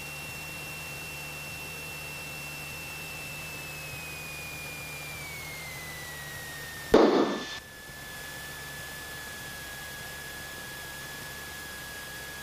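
Cessna 172SP cabin noise through the headset intercom: a steady hiss of engine and airflow with a faint high whine that drops in pitch about five seconds in. About seven seconds in, a short, loud radio burst cuts in.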